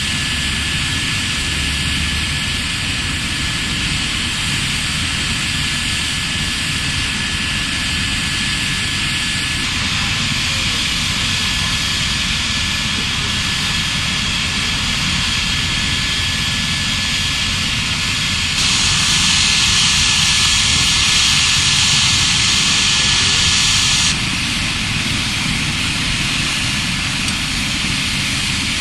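Medical helicopter's turbine engines and rotor running steadily, with a constant high whine. About two-thirds of the way through, the noise turns suddenly louder and hissier for about five seconds, then drops back.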